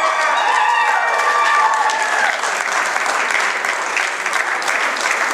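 Crowd applauding, with voices shouting over the clapping for the first couple of seconds before it settles into steady applause.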